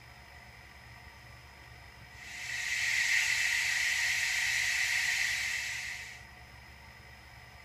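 Steam hiss played by a model steam locomotive's Tsunami DCC sound decoder through its small speaker. It fades in about two seconds in, holds steady for about four seconds, then fades out.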